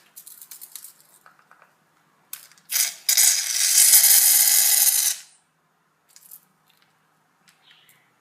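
Aerosol can of shaving foam dispensing: a short spurt about two and a half seconds in, then a steady hiss for about two seconds, with a few light clicks before it.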